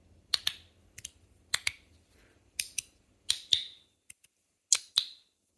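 Aluminium magnetic fidget slider (GD EDC Samsara 2.0) being slid back and forth, its magnets snapping the slider into place with sharp metallic clicks. The clicks often come in quick doubles, about one snap every half second to second.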